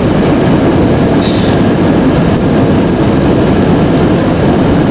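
Steady, loud rumble of jet engines and rushing air inside the cabin of an Airbus A320 in flight.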